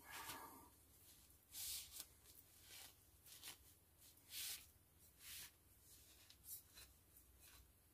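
Faint rubbing of a cloth wiping metal hand tools clean, in about seven short, separate strokes.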